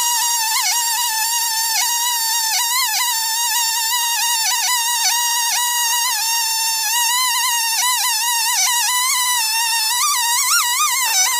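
Timberpro two-stroke chainsaw on a single-post chainsaw mill, running at high steady revs as its chain rips lengthwise through a spruce log. Its pitch wavers slightly with the load of the cut.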